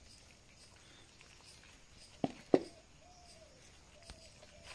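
Hands pulling bulbs from a split ripe jackfruit in a steel bowl: soft handling, with two sharp clicks a quarter second apart a little past halfway. A faint thin drawn-out tone sounds twice in the background in the second half.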